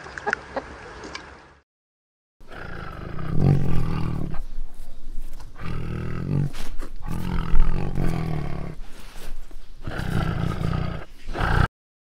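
Clouded leopard cubs growling in several rough, loud bouts with short pauses between them, stopping abruptly near the end. Before that, hens cluck softly for about a second and a half, then there is a brief gap.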